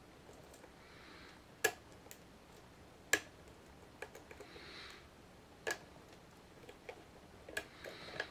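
A lock pick and tension wrench working the pin-tumbler keyway of a Master Lock 570 padlock: sharp metallic clicks every second or two, the loudest about a second and a half in and three seconds in, with fainter ticks and soft scratching between.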